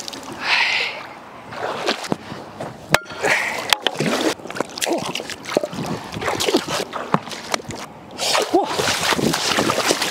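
Shallow river water splashing and sloshing as a wader lunges and grabs at fish with his bare hands, in irregular splashes, with one sharp click about three seconds in.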